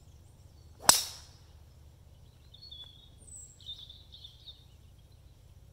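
A golf driver striking the ball off the tee about a second in: one sharp, metallic crack with a short ring.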